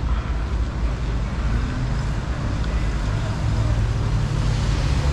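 Street traffic: a motor vehicle's engine hums close by over a low rumble, growing louder toward the end.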